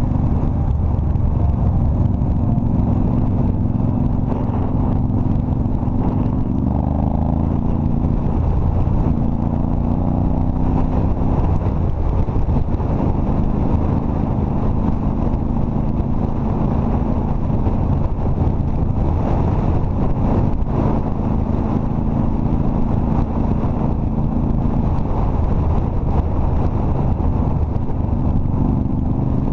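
Cruiser motorcycle engine running under way at road speed over steady wind noise. The revs rise about seven seconds in, ease off briefly around twelve seconds, then hold steady.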